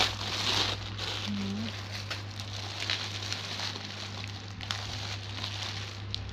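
Thick bubble wrap and plastic packaging crinkling and crackling as a wrapped parcel is handled and turned over, loudest in the first second.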